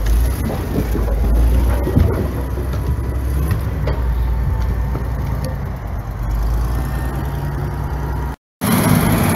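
Dresser 560 wheel loader's big International diesel engine running steadily, with knocks of firewood logs tumbling out of the bucket in the first couple of seconds. The sound drops out briefly near the end.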